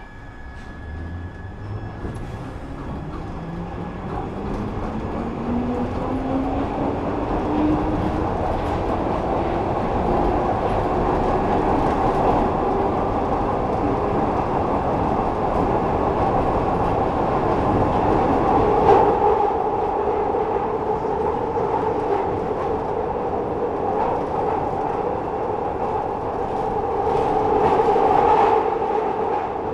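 Glasgow Subway train pulling away, its traction motor whine rising steadily in pitch over the first ten seconds or so as it gathers speed. It then runs on through the tunnel with a steady rumble of wheels on rail, scattered clicks, and swells of louder running noise about two-thirds of the way in and near the end.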